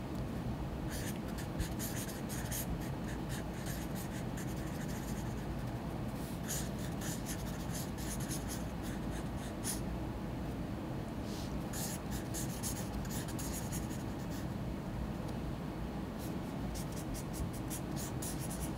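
Pen scratching on paper in quick clusters of short strokes with pauses between them: separate little marks drawn one after another, the pen lifted between each.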